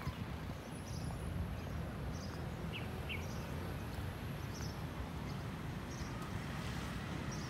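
Outdoor park ambience: small birds chirping in short high bursts about once a second, over a steady low rumble of city background noise.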